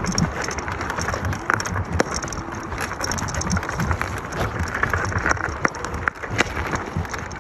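eX-Trail1000 electric scooter ridden over rough off-road ground: a continuous rush of wind and tyre noise, broken by frequent short knocks and rattles as it goes over bumps.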